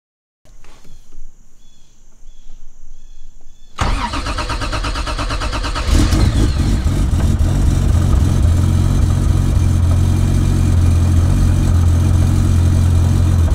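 Toyota Supra engine cranked on the starter for about two seconds, catching about six seconds in and settling into a steady idle. Before the cranking there are a few seconds of faint clicks and a thin high whine.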